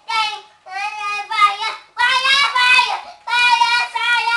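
A boy of almost four singing in a high child's voice: four sung phrases, each broken off by a short pause for breath.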